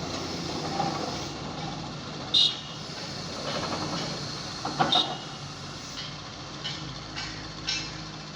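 Hydraulic impact hammer driving a precast concrete pile: two heavy blows about two and a half seconds apart, then three lighter knocks near the end, over the steady running of the rig's engine.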